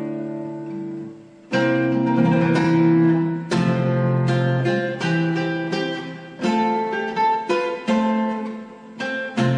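Instrumental music of plucked string chords, each struck sharply and left to ring. The notes fade about a second in, and the playing picks up again at about a second and a half.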